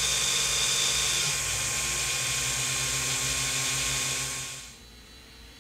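The stock 40 mm hot-end cooling fan of a Voxelab Aquila 3D printer runs with a loud, steady whirring hiss and whine. The fan has grown noisy over long prints. About four and a half seconds in, the sound drops to a much quieter, faint hiss from the replacement Winsinn RGB fan.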